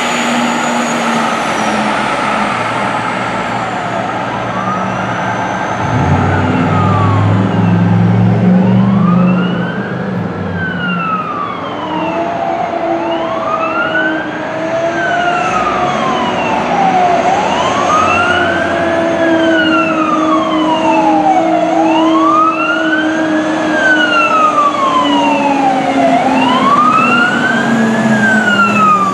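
Fire apparatus siren on wail, rising and falling about every four to five seconds over the sound of the responding trucks. A louder, deeper sound joins for a few seconds about six seconds in.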